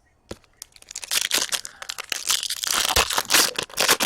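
A hockey card pack wrapper being torn open and crinkled by hand, a dense crackling that starts about a second in and keeps going.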